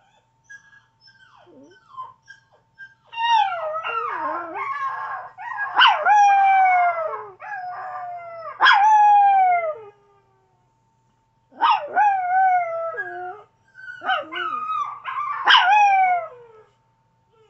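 Chihuahua howling: a few faint whimpers, then three bouts of howling, each a string of long notes that slide down in pitch, with a pause of about a second between bouts.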